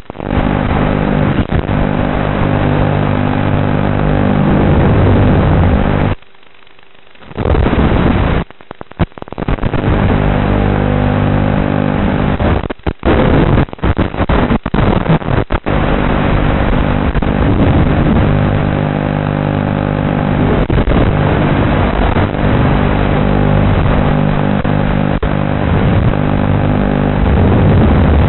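FPV racing quadcopter's brushless motors, picked up by its onboard camera microphone and sent over the analog video link: a loud, distorted buzzing whine that shifts in pitch with throttle. It drops out for about a second some six seconds in, then crackles and breaks up for a second or two.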